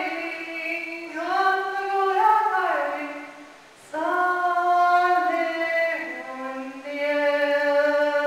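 A woman singing an icaro, an Amazonian shamanic healing song, solo without accompaniment: long held notes in phrases that step down in pitch, with a short breath about four seconds in and a slide down to a lower held note about six seconds in.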